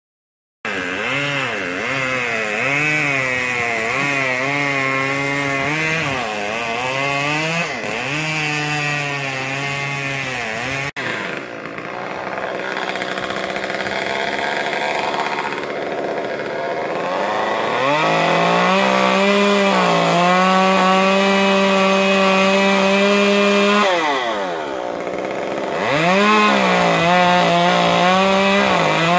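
Chainsaw engine revving up and down again and again, then held at high speed for several seconds, dropping off and revving up again near the end.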